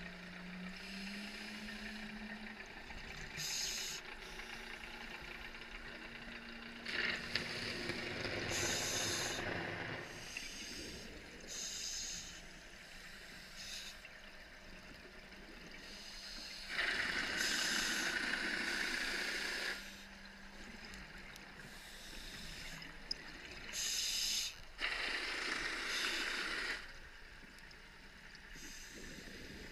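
Scuba diver breathing through a regulator, heard underwater: short hissing inhales and three longer bubbling rushes of exhaled air, spaced several seconds apart. A faint steady low hum runs underneath.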